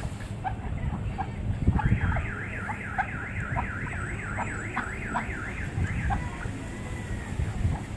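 A warbling alarm tone sweeping rapidly up and down, about six times a second, starts about two seconds in and stops about four seconds later. Short, evenly repeated chirps and low wind rumble sound underneath.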